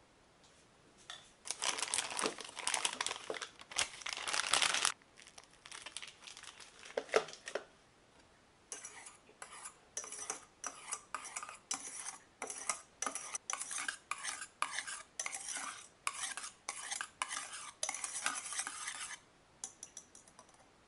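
Wire whisk scraping and tapping against a stainless steel saucepan while mixing whipped cream into vanilla custard. A dense spell of scraping in the first few seconds, then steady, even strokes about two a second until shortly before the end.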